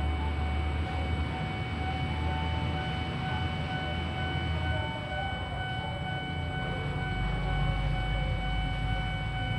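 Passing train, its deep rumble fading away about five seconds in, over a steady high ringing tone.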